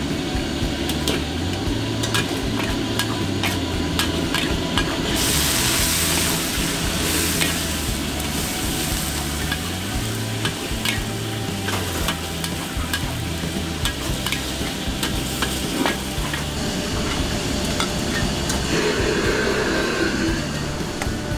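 Metal spatula scraping and clanking against a wok as crab pieces and fried garlic are stir-fried, with the oil sizzling. A louder burst of sizzling comes about five seconds in.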